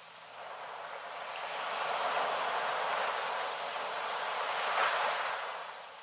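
Small sea wave washing up a sandy beach and drawing back: a hiss of foamy surf that swells about half a second in and dies away near the end.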